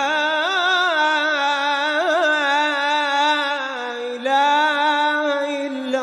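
A single voice chanting an Islamic devotional nasheed, drawing one syllable out in long held notes with melismatic ornaments, with no instruments heard. A short break comes about four seconds in before the next held phrase.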